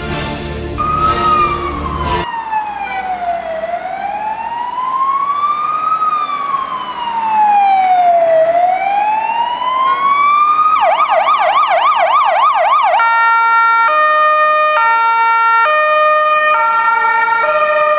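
Ambulance electronic siren on an emergency run: a slow wail rising and falling about every five seconds, switching near the middle to a fast yelp for about two seconds, then to an alternating high-low two-tone. Intro music is heard for the first two seconds as the wail starts.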